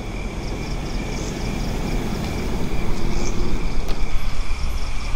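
Low rumble of distant traffic that grows louder about halfway through, with insects chirping in a steady repeating pattern.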